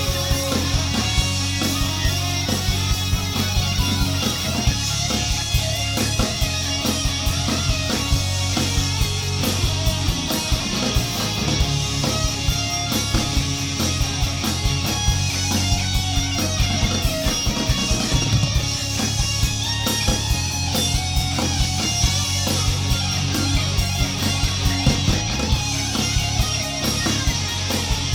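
Live rock band playing an instrumental passage: electric guitar over bass and a steady drum beat, with no singing.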